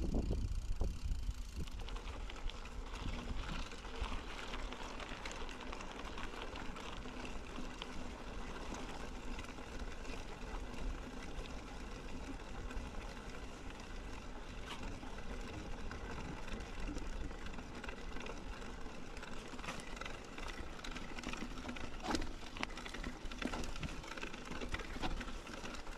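Mountain bike being ridden on a trail: steady tyre and drivetrain noise over a low rumble, with scattered rattles and sharper knocks, more of them near the end.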